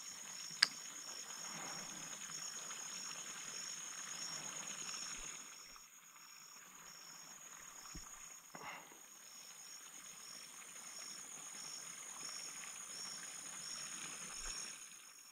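A steady, high-pitched insect chorus with an evenly repeating pulse, over a faint rustle. A single sharp click comes about half a second in, and two softer knocks come around eight seconds in.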